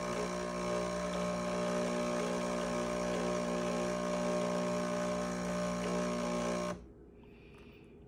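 Jura Z6 automatic coffee machine's pump running with a steady hum as it dispenses coffee into the cup, cutting off abruptly near the end when the coffee stage finishes.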